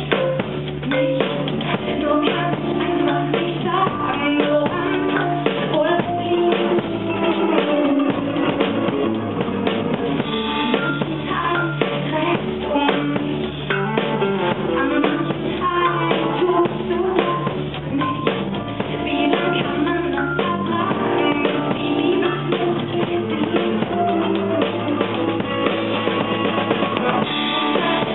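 Live band playing a song: a drum kit keeping a steady beat with kick and snare, with guitar.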